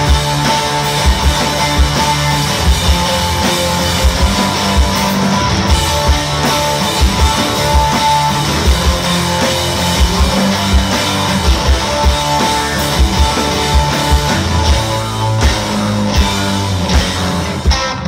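Live rock band playing: electric guitars over a drum kit keeping a steady beat.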